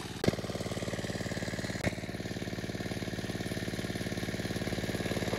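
Small engine-driven water pump running steadily, pumping the pond dry. Two sharp clicks stand out, about a third of a second in and again near two seconds.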